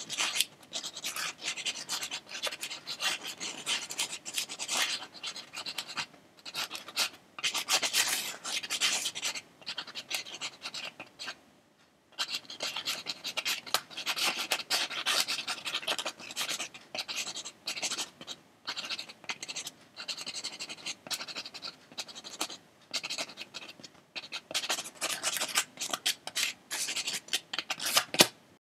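Drawing strokes scratching on paper, many short strokes in quick, uneven succession. There is a brief pause about eleven seconds in, and the strokes stop just before the end.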